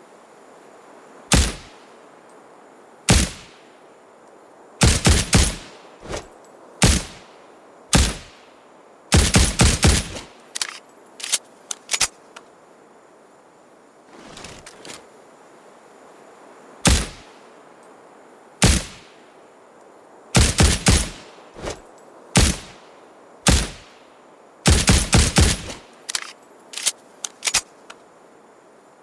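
Suppressed Ruger Security-9 9mm semi-automatic pistol firing sharp shots, some single and some in rapid strings of several shots, with pauses between.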